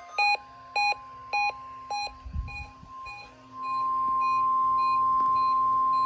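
Weather radio receiver's alert beeping in short pulses, about three beeps every two seconds, set off by the weekly NOAA Weather Radio test. About three and a half seconds in, the steady 1050 Hz warning alarm tone comes up loud and holds.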